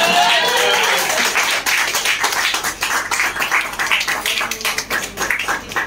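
A small group of people clapping in a room, a dense, uneven patter of hand claps.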